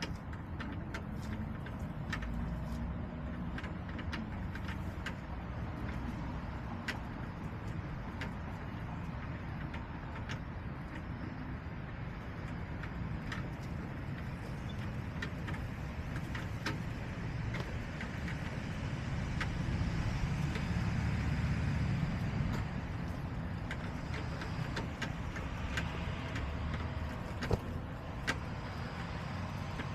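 Steady low rumble of road traffic, swelling for a few seconds about twenty seconds in as a vehicle passes, with scattered light ticks and taps over it.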